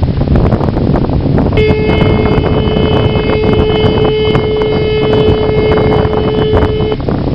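A ship's horn sounds one long steady blast of about five seconds, starting a second and a half in, over heavy wind buffeting the microphone.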